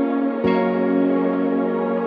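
Soft ambient instrumental background music with held chords; the chord changes about half a second in.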